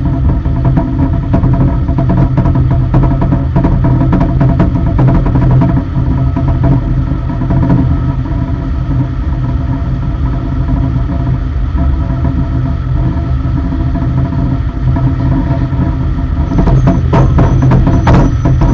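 Aircraft cargo loader and ramp machinery running with a steady engine drone, with scattered metallic knocks and clatter. Near the end a thin high whine starts and several sharp knocks come close together.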